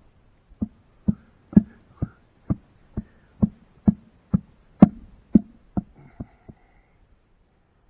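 A steady run of about a dozen dull blows, roughly two a second, that weaken and stop near the end.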